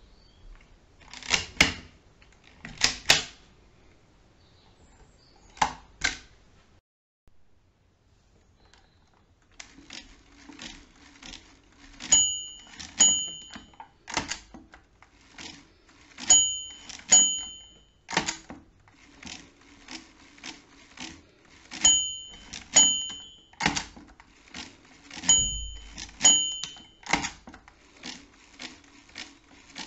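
Schubert DRV mechanical calculator worked by its hand crank: a few loud clacks in the first six seconds, then a fast clattering run of gear and ratchet clicks as the crank is turned again and again. A small bell chimes in repeated pairs of pings, the calculator's signal that a subtraction has gone past zero during division.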